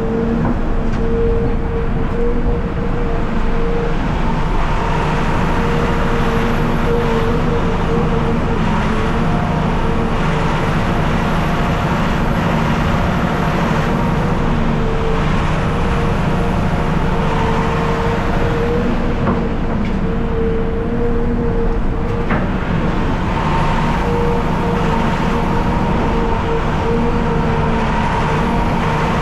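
Heavy diesel machinery running steadily: the CAT 740B articulated haul truck idling while a CAT hydraulic excavator works right alongside, loading dirt into its bed. A steady whine runs over the engine noise, breaking off and returning every few seconds.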